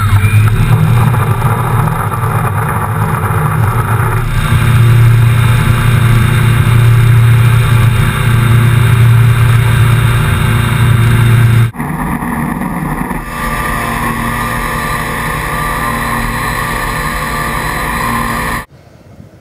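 Electric motor and propeller of a battery-powered unmanned aircraft, heard close up from a camera mounted on the plane, running with a steady low drone. It grows louder about four seconds in as the plane takes off, changes tone abruptly near twelve seconds, and drops away sharply just before the end.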